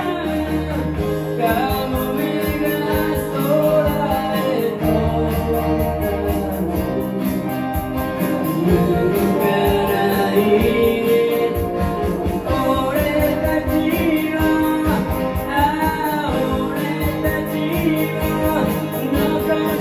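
Amateur live band performing a pop song: a singer over guitar, bass and drums with a steady beat.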